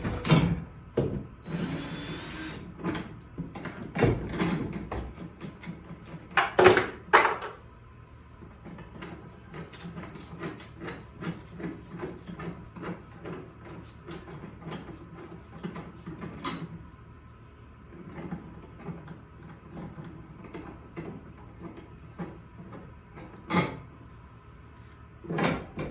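Ratchet socket wrench being worked back and forth to loosen the bolts on a garage door torsion spring's center mounting bracket, with a long run of even clicking strokes. A few louder metal clanks come at the start, again after about six seconds, and near the end.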